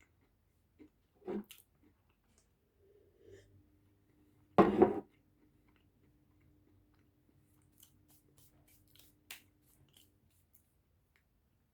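A person chewing pizza: scattered soft mouth clicks and smacks, with one much louder short noise about four and a half seconds in.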